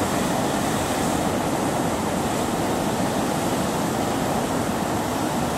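Ocean surf breaking and washing over a rocky reef shelf: a steady rush of water noise.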